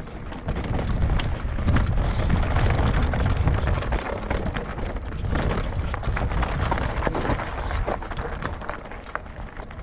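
Mountain bike rolling over a rough, stony trail, with the tyres crunching on stones and the bike clattering in quick irregular knocks. A heavy rumble of wind buffets the microphone throughout.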